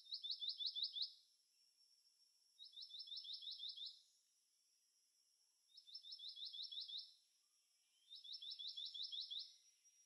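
Black-naped monarch song: four short bouts of a rapid 'wi-wi-wi-wi' series, six to eight high notes per bout, each note sliding down in pitch. Faint, about a second and a half between bouts.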